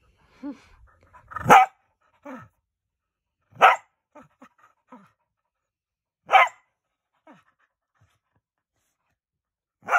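A dog play-biting at a person's finger, giving four loud, short, harsh barks about every two to three seconds, with quieter growly sounds between them.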